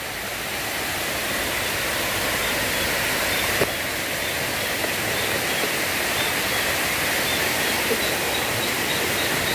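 Steady rushing of river water pouring over a dam weir, an even noise with no change, and a faint, evenly repeated high chirp above it.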